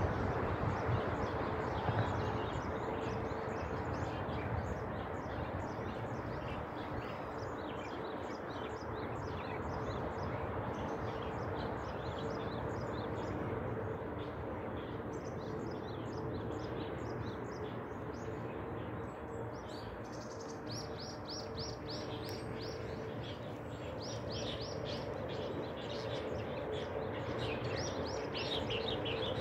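Small songbirds chirping and singing in a morning chorus over a steady background hum and noise. About two-thirds through, one bird gives a quick run of repeated high notes, about four a second, and does so again near the end.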